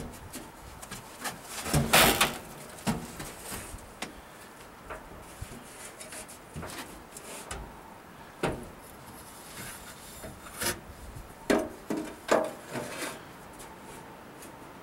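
Old Chevy pickup tailgate being handled and folded up against a log wall, with scrapes and knocks. The loudest is a scrape about two seconds in, and scattered knocks follow later as it is set in place.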